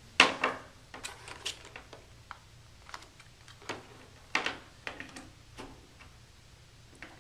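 Packing being handled: a plastic power-adapter brick and its cords are lifted out of a foam box insert and set down. This makes a scatter of short clicks and knocks, the loudest just after the start.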